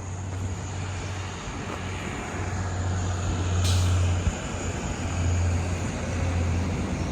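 A motor vehicle passing by, its noise building to its loudest about four seconds in and then easing off.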